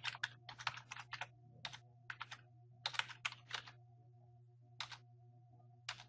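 Typing on a computer keyboard: quick runs of keystrokes for the first four seconds or so, then two single taps, over a faint steady low hum.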